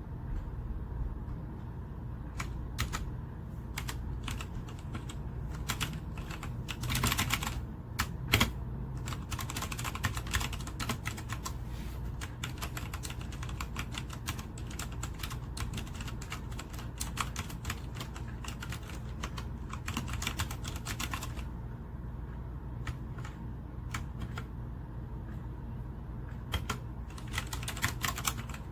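Continuous fast typing on a 60% mechanical keyboard: a dense patter of key clicks, with a louder flurry of keystrokes about seven seconds in.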